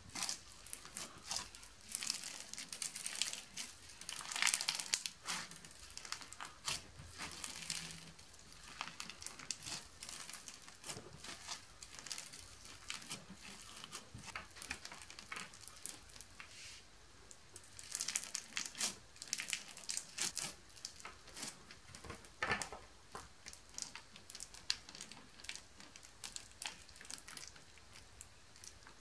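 Clear slime packed with small beads being squeezed and kneaded by hand, giving quick, irregular crackling and clicking pops.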